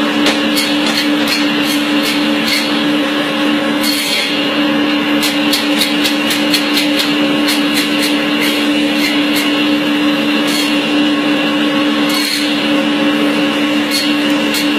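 Electric meat band saw running with a steady, loud motor hum as cuts of meat, including rib sections, are fed through the blade. Scattered sharp ticks come and go as the blade meets the meat.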